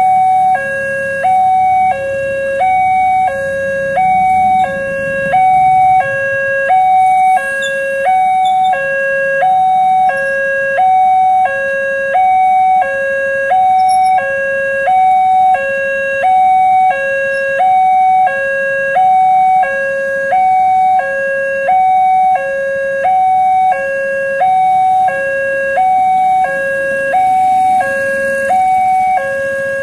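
Electronic warning siren of a railway level crossing, sounding two alternating notes, a low and a higher one, switching about every three-quarters of a second. It signals that the barrier is down and a train is approaching. Motorcycle engines rumble faintly beneath it near the start and near the end.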